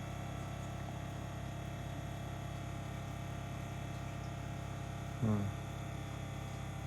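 Battery-powered Zacro automatic electric ball pump running with a steady motor hum while inflating a ball. About five seconds in comes one short, low voice sound.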